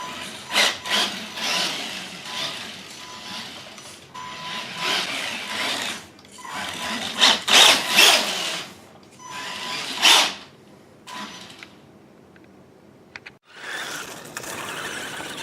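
Electric motor and gear drivetrain of a radio-controlled Tamiya Suzuki Jimny whining in repeated surges as it speeds up and slows. The loudest surges come in the middle of the stretch. A quieter spell with a few clicks follows before it picks up again near the end.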